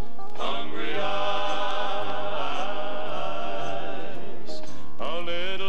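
Recorded gospel music: a male quartet's voices holding a long chord in close harmony over a bass line, then moving into a new phrase near the end.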